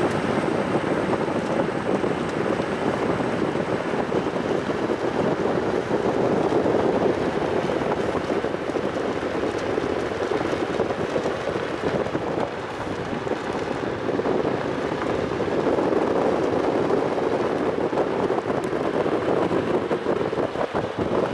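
Steady rush of wind and road noise from a ute driving along, heard from the open back where the dogs ride.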